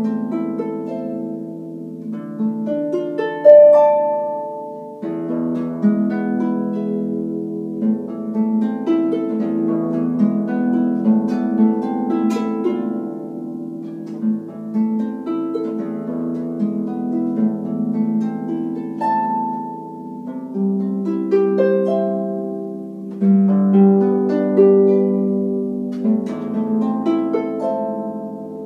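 Concert harp playing a slow siciliana: plucked notes ringing on over bass notes, with a strongly accented note about three and a half seconds in and a fuller, louder passage near the end.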